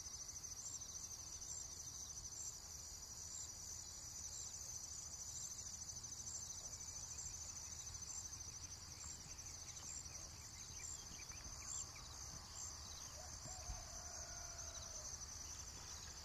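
Faint nature ambience: a steady, high, pulsing insect trill. A faint wavering animal call comes in about thirteen seconds in.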